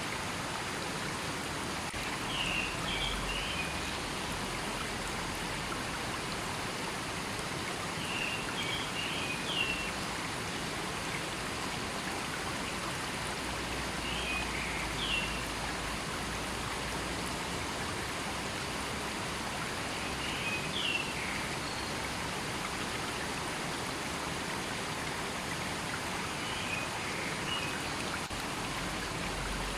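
A river flowing with a steady rushing. Over it, a bird gives a short cluster of high chirps about every six seconds, five times in all.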